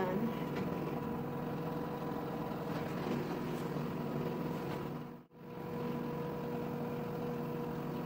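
LG Direct Drive front-load washing machine running its final spin, a steady hum with a constant whine over it. The sound drops out for a moment about five seconds in.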